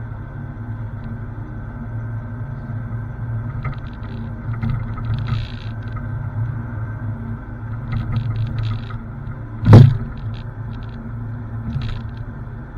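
Digging machine's engine running steadily while it digs, with bursts of clanking and scraping and one loud bang a little under ten seconds in.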